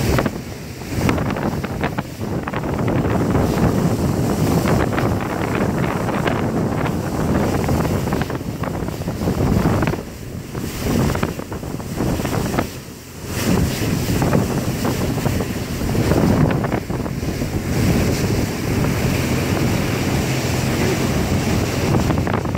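Wind buffeting the microphone aboard a ski boat underway, over the boat's engine and the rush of its wake. The buffeting eases briefly about ten and thirteen seconds in.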